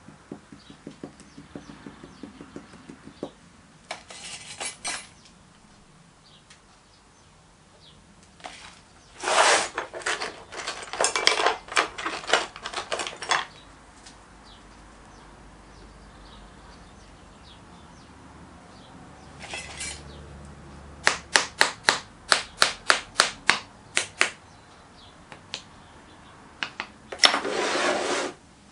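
A sand-casting mould being worked by hand: a small metal tool scraping moulding sand and tapping against the wooden flask in several bouts. Past the middle comes a run of about a dozen sharp taps at roughly four a second. Near the end there is a short scraping rush as the flask is handled.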